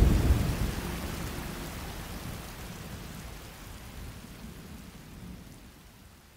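Steady rain falling, fading slowly away to near silence, with a low rumble at the very start.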